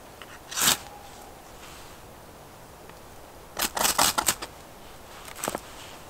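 Short, dry scraping and rustling sounds of hands working tinder and kindling while a campfire is prepared: one sharp scrape about half a second in, a quick run of several a little past the middle, and one more near the end.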